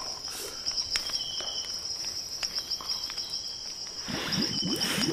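Steady high-pitched chirring of insects. A second, lower insect call comes in short spells. About four seconds in, a fast run of low sliding sounds begins.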